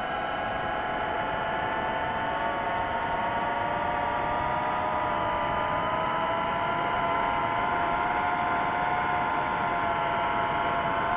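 DJI FPV drone's motors and propellers whirring steadily in flight: several close, high tones that drift slowly in pitch over a steady rushing noise.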